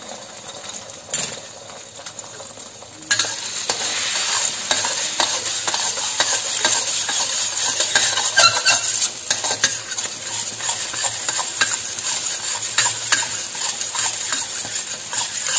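Beaten eggs sizzling in hot oil in a metal wok while a spatula scrapes and taps against the pan to scramble them. The sizzle is fainter for about the first three seconds, then the stirring starts and the sound gets suddenly louder.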